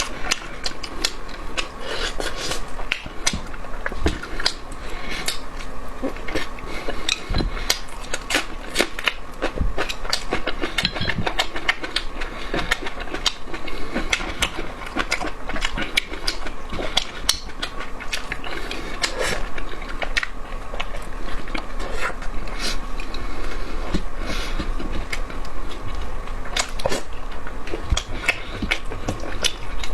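A person chewing and eating food close to the microphone: a dense run of irregular mouth clicks, smacks and bites with no pauses.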